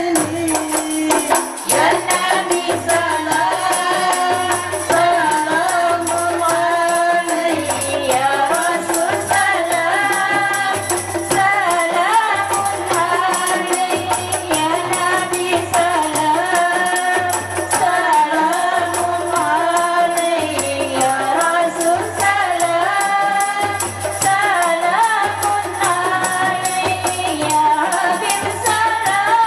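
A women's qasidah rebana group sings an Arabic devotional song together, accompanied by rebana frame drums. The drums keep a steady repeating low beat under a constant jingling.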